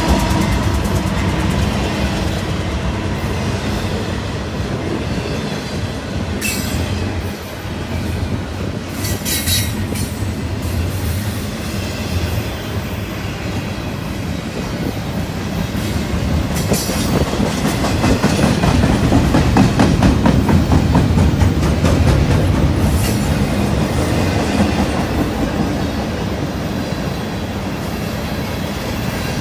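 Freight train cars rolling past with a steady rumble and the clickety-clack of wheels over rail joints. Several brief high-pitched wheel squeals cut in along the way.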